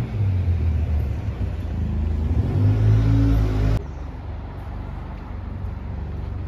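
A motor vehicle's engine running close by, rising in pitch as it speeds up. About four seconds in it cuts off suddenly, giving way to quieter, steady street noise.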